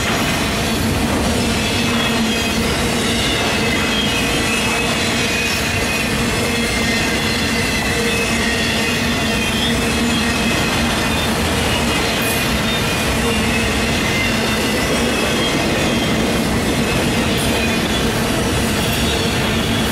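Freight train of autorack cars rolling steadily past, steel wheels running on the rail with a loud, even rumble and a faint high-pitched wheel squeal.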